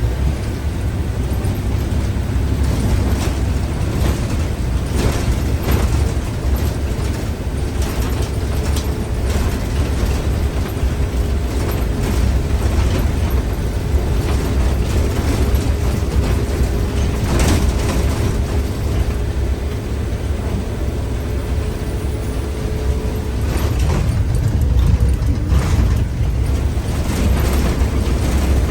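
City bus underway: a steady low rumble from the engine and road, with scattered clicks and rattles and a faint steady whine through the middle.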